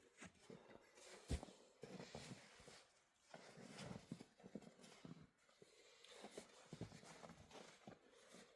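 Near silence with faint, scattered clicks and knocks, one sharper knock a little over a second in.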